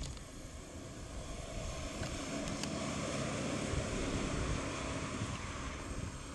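Morris Minor Traveller driving past: the small four-cylinder engine and tyre noise swell to a peak about four seconds in, then fade as it moves away.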